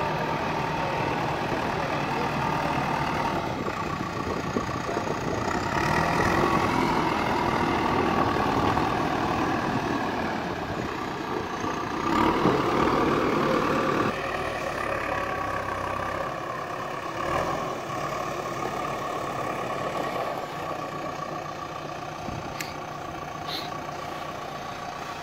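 JCB 3DX backhoe loader's diesel engine running steadily while the machine moves with a concrete culvert pipe slung from its front loader bucket. The engine is louder through the middle, then drops to a lower, steadier note about two-thirds of the way in.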